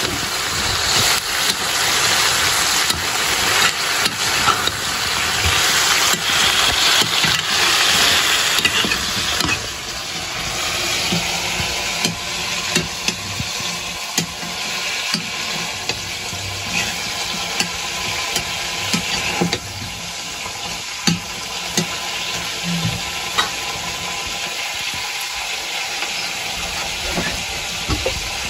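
Dried buffalo meat and onions sizzling in a metal wok while a long metal ladle stirs and scrapes it. The sizzle is loudest for about the first nine seconds, then settles lower, with scattered clinks of metal on metal.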